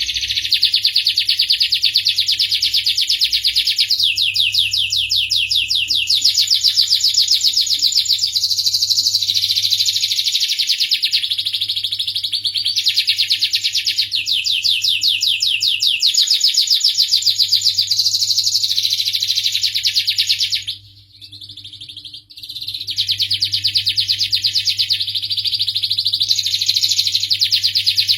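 Domestic canary singing a long, continuous song of rapid high trills, with a short pause about 21 seconds in.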